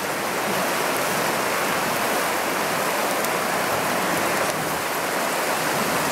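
A fast, shallow river rushing over rocks and small rapids: a steady, even rush of water.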